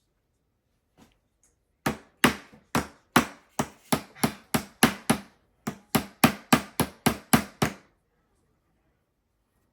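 A small hammer striking a block of ice over and over, about three quick blows a second with a brief pause midway, each with a short bright ring: chipping at a frozen ice egg to crack it open.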